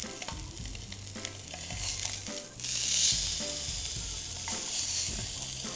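Tuna loin searing in a very hot frying pan: a steady sizzle with a few light clicks of metal tongs, surging suddenly about two and a half seconds in as the block is turned onto a fresh side, then easing off.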